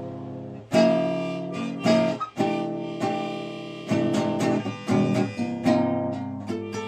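Acoustic guitar playing a blues, chords struck one after another and left to ring.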